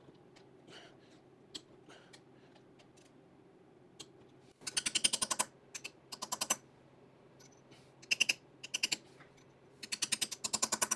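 Hammer tapping a punch to bend up the tabs of the tab washers against the flywheel bolts: several runs of quick, light taps, starting about halfway through.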